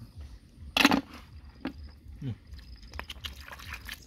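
Hands rummaging and splashing in shallow flowing stream water while picking up snails, with small clicks and one short, louder splash about a second in.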